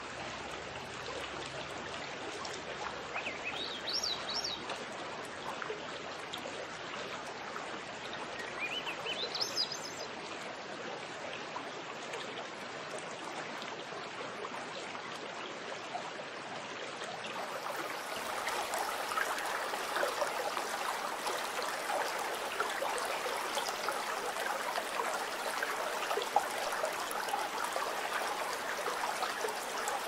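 Creek water rushing and burbling over rocks. A bird gives two short rising calls in the first ten seconds. A little past halfway the water grows louder and brighter.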